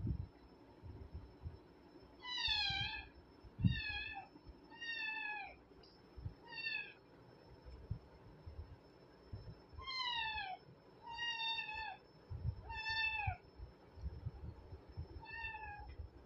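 Cat mewing, eight short high-pitched calls that each drop in pitch at the end, in two loose runs with a pause in the middle. Soft low thumps come between them.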